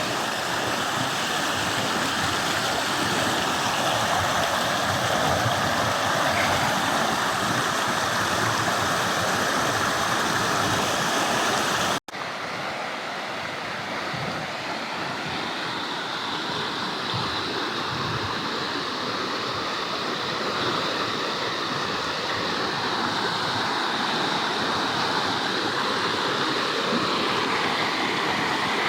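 Rushing water of a canyon stream, a steady hiss. About twelve seconds in it cuts out for an instant, then goes on a little softer and duller.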